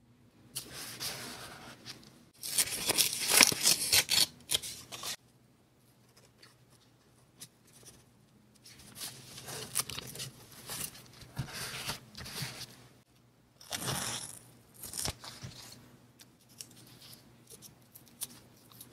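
Paper being torn and handled on a kraft-paper journal page: noisy tearing strokes over the first five seconds, loudest about three seconds in, then softer rustling and scraping as torn paper scraps and a sticker are pressed down with tweezers.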